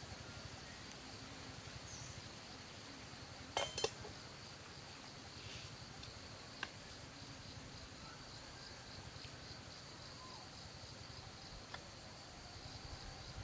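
Insects shrilling steadily in the forest, one even high-pitched drone, with a short clatter of chopsticks against a bowl a little under four seconds in.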